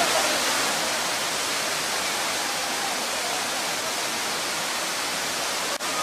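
Waterfall: water cascading down rock ledges in a steady rush of white noise.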